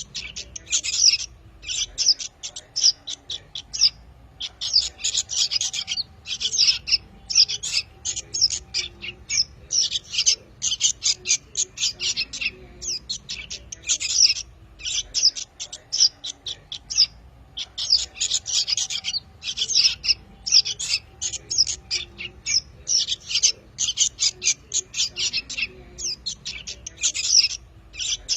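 Young songbirds calling: fast runs of short, high-pitched chirps and squawks with brief pauses. This is a bird-lure recording of young plain prinias, sooty-headed bulbuls and yellow-vented bulbuls.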